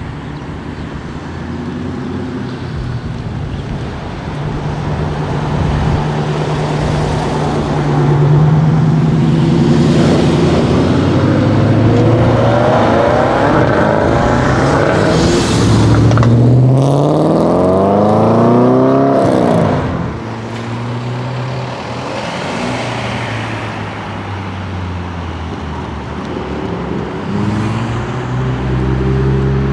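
Cars pulling away one after another. The loudest is a Renault Clio RS accelerating hard: its engine note climbs through one gear, drops briefly at a shift, climbs again, then falls away suddenly as the driver lifts off. A Toyota Supra's engine comes in near the end, low and steady.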